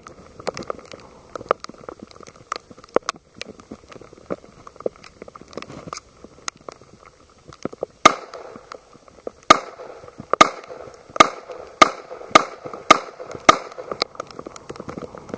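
A 1911 pistol firing a string of about eight shots in quick succession, starting about 8 seconds in, roughly one to two shots a second. Before the shots there are only faint clicks and rustling.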